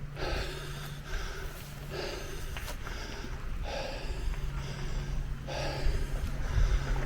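A walker breathing hard, in repeated puffs about a second apart, from the effort of climbing a steep hill.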